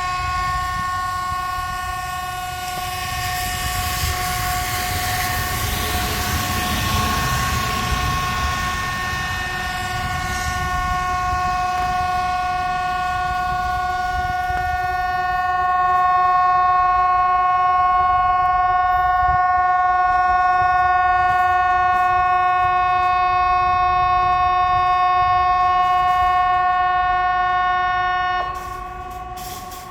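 Hesa Fredrik civil defence siren sounding the all-clear: one continuous, unwavering two-note tone held for nearly half a minute, the steady signal meaning the danger is over. Near the end the tone drops in pitch and fades as the siren winds down.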